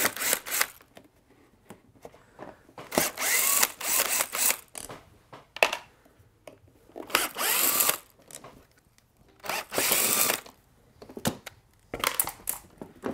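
Cordless drill-driver with a Phillips bit spinning in about five short runs, its pitch rising and falling as it speeds up and slows, backing out the screws that hold the air intake on a two-stroke leaf blower. Light clicks of screws and plastic parts come between the runs.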